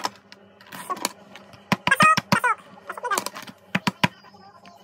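Small hammer tapping on a pin tool to drive the pins out of a metal watch bracelet, a few scattered sharp taps. About two seconds in there is a brief, louder wavering pitched sound.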